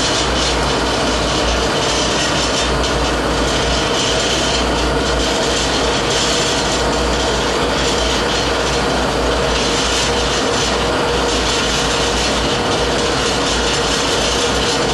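56 cubic foot stainless steel double ribbon mixer blender running, its ribbon agitator turning in the trough with a steady mechanical whirr and a constant hum.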